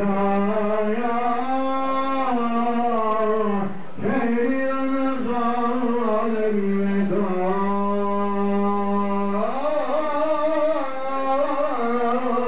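A man chanting unaccompanied in long, slowly bending melismatic phrases, in the manner of Quran recitation, with breaths about four and nine and a half seconds in.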